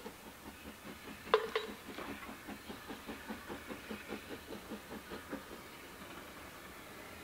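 Steam locomotive LSWR T3 No. 563 approaching slowly under steam, its exhaust beating softly at about three to four beats a second, the beats fading near the end. Two sharp metallic clanks about a second and a half in are the loudest sounds.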